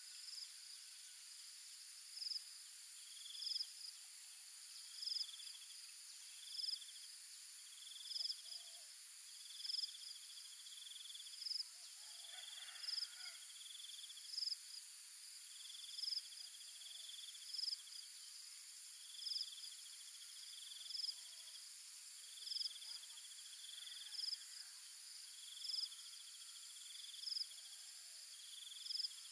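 Insects chirping in a steady repeating pattern: a short high chirp about every second and a half, alternating with buzzy trills, over a continuous high-pitched insect hum.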